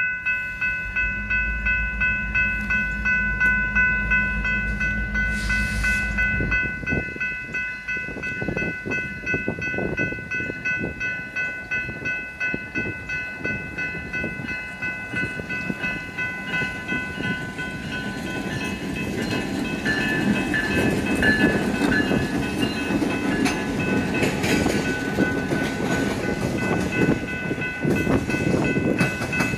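A pair of Union Pacific EMD GP-series diesel locomotives (geeps) rumbling past. About six seconds in, the engine rumble gives way to the knocking and clatter of freight cars rolling over the rail joints.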